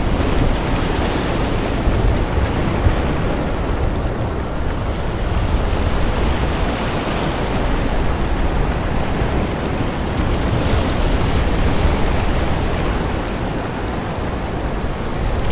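Steady wash of sea surf mixed with wind, with a low rumble of wind on the microphone throughout.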